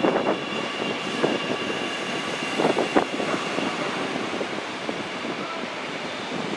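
MTR South Island Line S-train running along the track through the station: a steady rolling noise with a faint high steady whine, and a few sharp clacks about two and a half to three seconds in.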